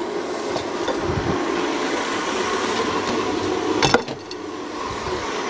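Electric stand mixer running steadily, beating egg yolks. A sharp knock comes about four seconds in, and the running sound is a little quieter after it.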